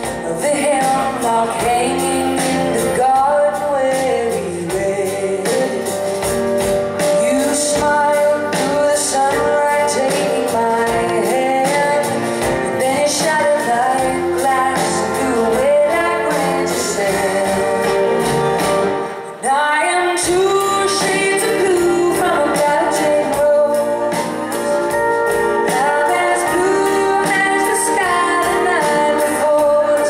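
Live band playing a country-rock song on electric guitars, acoustic guitar, bass guitar and drums, with a woman singing lead. The band dips briefly a little past the middle and comes straight back in.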